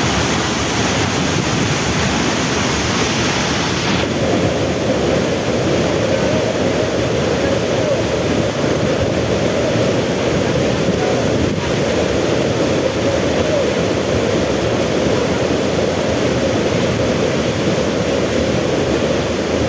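Waterfall: water pouring and splashing in a loud, steady rush. About four seconds in, the higher hiss drops away and the rush turns deeper.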